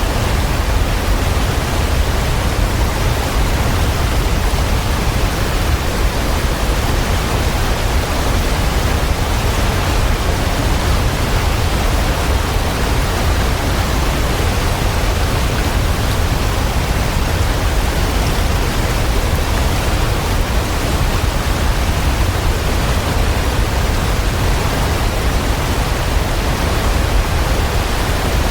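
Waterfall: a steady, unbroken rush of falling water, heaviest in the deep low end.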